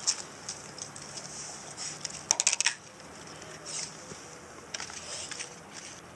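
Clicks and rattles of a clear plastic tub and the cardboard egg-crate pieces inside it being handled, with a loud cluster of clicks about two and a half seconds in.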